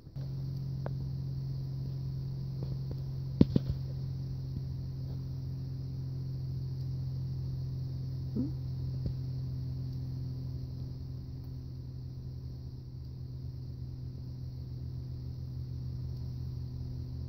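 Steady low motor hum that starts abruptly, with a couple of sharp clicks about three and a half seconds in.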